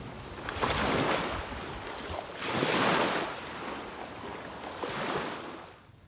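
Sea waves washing in, swelling and ebbing about every two seconds.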